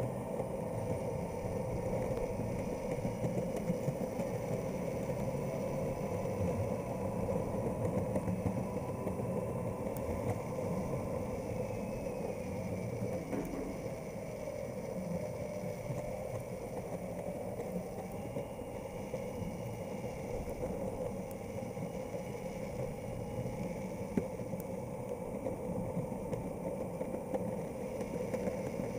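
Boosted electric skateboard rolling over pavement, its wheels rumbling and its motor whining steadily, the pitch drifting slowly up and down with speed.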